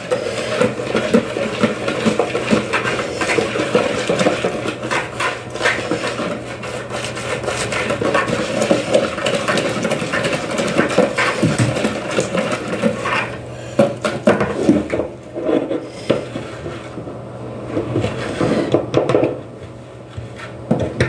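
Wire balloon whisk beating flour into chocolate cake batter in a bowl: fast, steady scraping and clicking of the wires against the bowl, easing to a few scattered taps about two-thirds of the way through.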